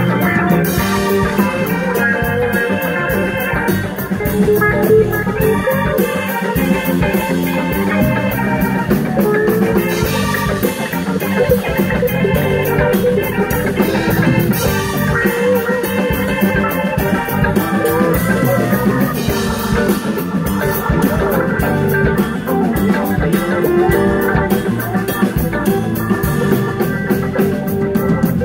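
Live rock band playing an instrumental passage: electric guitars, bass, drum kit and an organ-sounding keyboard, steady and loud throughout.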